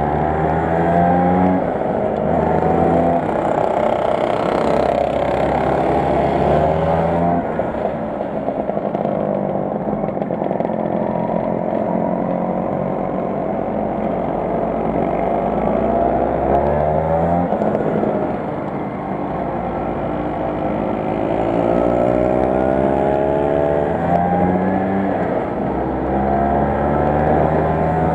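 Vespa 125 Super's single-cylinder two-stroke engine heard on board while riding, its revs climbing and then dropping back sharply several times, with a quieter, lower-revving stretch in the middle.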